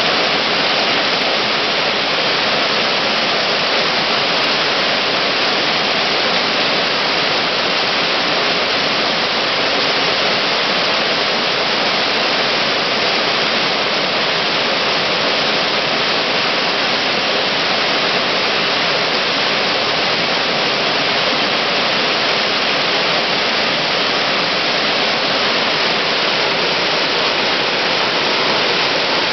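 Whitewater of a small rocky waterfall on a beck, pouring over boulders with a loud, steady rush.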